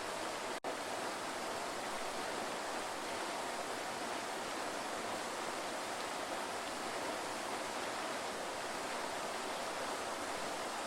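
Waterfall: a steady rush of falling water, broken by a split-second dropout just after the start.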